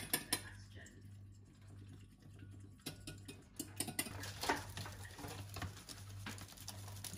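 A utensil clicking and scraping against a ceramic bowl as raw egg is beaten by hand. A plastic bag rustles in the last few seconds. A steady low hum runs underneath.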